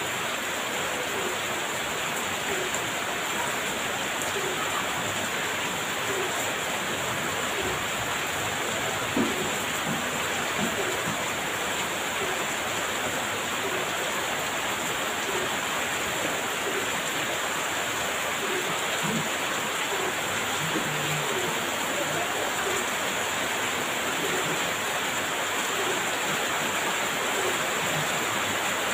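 Heavy rain pouring steadily, a dense even hiss, with scattered small taps of drops and one sharper knock about nine seconds in.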